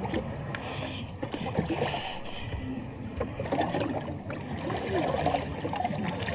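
Water sloshing and splashing around an anchored boat's hull, with two short splashy hisses in the first couple of seconds and faint voices in the background.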